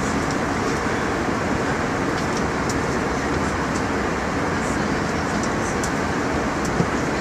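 Airliner cabin noise: the steady, even rush of engines and airflow inside the passenger cabin, with a few faint light clicks and a small knock near the end.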